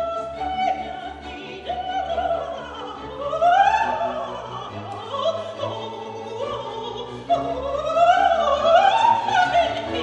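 Operatic soprano singing quick rising and falling coloratura runs, accompanied by an orchestra; the loudest high passages come about a third of the way in and again near the end.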